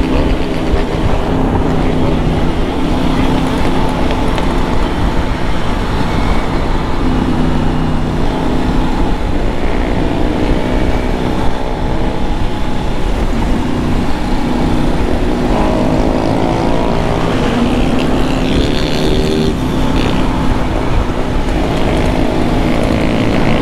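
Motorcycle cruising at about 70 km/h in fourth gear: a steady engine drone under heavy wind rush on the camera's microphone, with the engines of nearby motorcycles rising and falling as they ride alongside.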